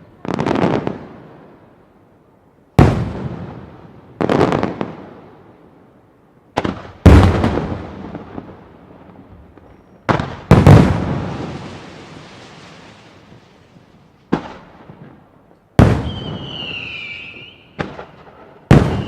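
Large fireworks bombs exploding one after another, about eleven sharp blasts at uneven intervals, each trailing off in a long echoing rumble. A high wavering whistle-like tone sounds between the last few blasts.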